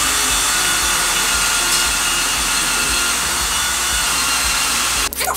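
Cordless drill boring a pilot hole into a wooden wall stud through a TV wall-mount slot, running steadily, then stopping suddenly about five seconds in.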